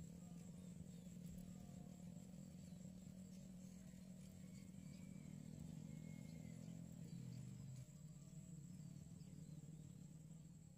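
Near silence: quiet outdoor ambience with a faint steady low hum and a few faint bird chirps in the middle.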